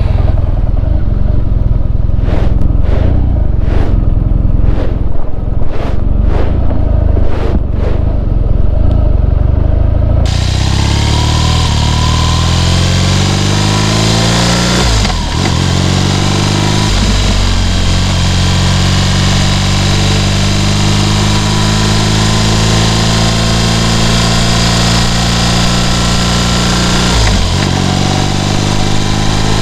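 Rock music with a steady beat for about the first ten seconds. It then cuts to a BMW R nineT's air/oil-cooled boxer twin riding away, rising in pitch through a couple of gear changes before holding a steady cruise.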